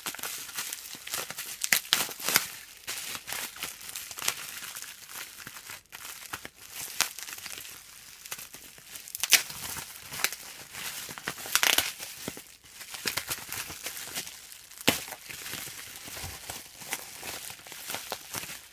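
Packaging being unwrapped by hand: a continuous crinkling and crumpling with irregular sharp crackles and some tearing.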